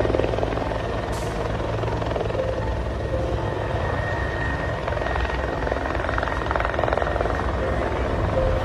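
Helicopter flying low and close, its rotor and turbine running steadily with a fast, even rotor chop.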